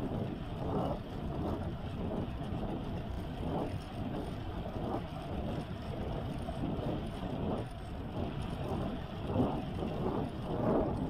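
Riding noise from a Tern Verge folding bike on the road: a steady low rush of wind over the handlebar camera's microphone and rolling tyres, swelling in irregular gusts.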